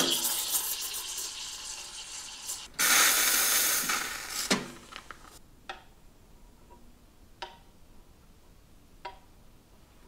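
Profitec Pro 800 steam wand hissing while milk is steamed in a pitcher, slowly fading, then a second loud hiss of about a second and a half from about three seconds in. After that it is quiet apart from three faint ticks.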